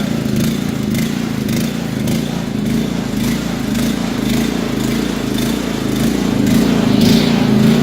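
Band sawmill's small pull-start petrol engine running steadily at full throttle just after a cold start, with the choke already off; it runs smoothly and the blade drive belt is not yet tensioned.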